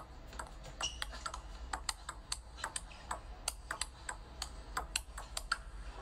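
Table tennis ball clicking off the bats and the table in a fast rally, about three to four sharp clicks a second, stopping about half a second before the end.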